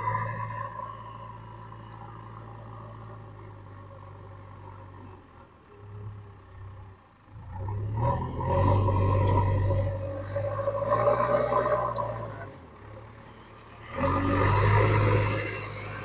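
Backhoe loader's diesel engine running with a steady low hum, getting louder in three surges about eight, eleven and fourteen seconds in as it drives off under power.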